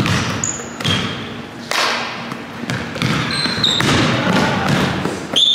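Basketball dribbled on a hardwood gym floor, irregular bounces about once a second, with short high sneaker squeaks on the floor, the loudest near the end.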